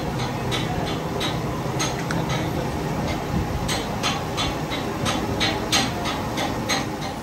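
Metal lathe running with a truck drive shaft's universal-joint yoke turning in its chuck and steady rest: a steady mechanical hum with irregular sharp metallic clicks, about two a second.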